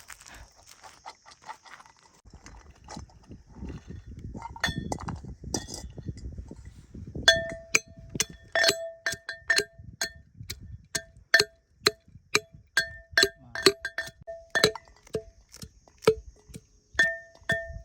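Repeated sharp metallic clinks, about two a second, each ringing briefly at the same pitch. They start about seven seconds in, after a stretch of low rumbling handling noise.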